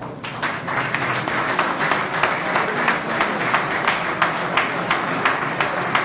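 An audience applauding, breaking out suddenly and continuing steadily.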